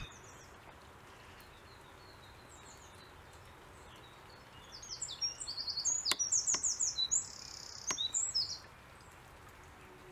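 A small songbird sings a quick run of high chirping notes for about four seconds, beginning around the middle, over a faint steady hiss; three sharp clicks sound during the song.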